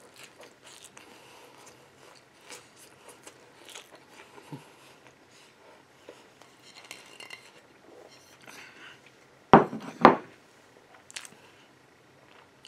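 Faint, irregular chewing and wet mouth clicks from a person eating a burger fast. About three quarters of the way in there are two loud, short sounds about half a second apart.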